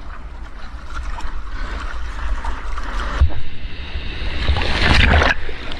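Ocean surf washing around, with wind buffeting the microphone; a louder rush of water builds from about three seconds in and drops off sharply just after five seconds.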